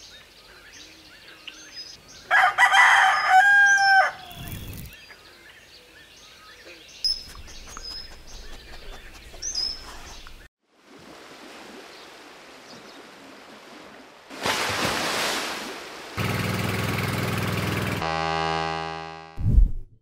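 A rooster crows loudly about two seconds in, over an outdoor background with small birds chirping now and then. Later come a rushing noise, a steady hum, and a buzzing tone that fades out, ending in a short low thump.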